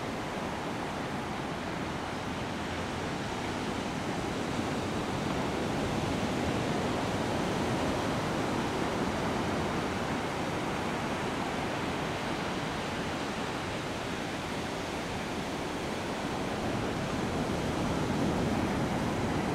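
Steady rushing background noise with no distinct events, swelling slightly near the end.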